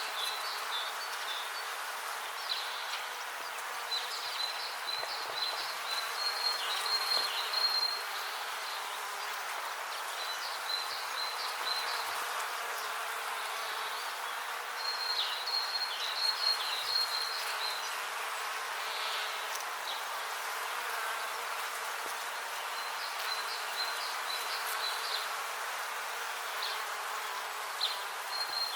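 Bees buzzing steadily in a dense hum, with short bursts of high chirping coming and going every few seconds.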